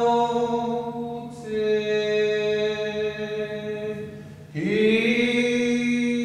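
Chanted vocal music: a voice holds long, steady notes, one after another, with a quick breath before each new note. The last note begins with a slight upward slide.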